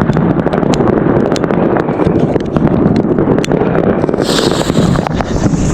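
Fireworks and firecrackers popping and crackling all around, many sharp cracks over a dense rumble, with wind on the microphone. A hissing rush joins about four seconds in.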